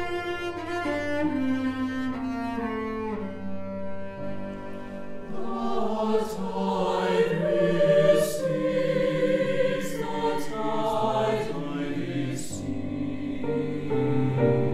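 A cello plays a bowed melody, and about four seconds in a mixed choir comes in singing over it.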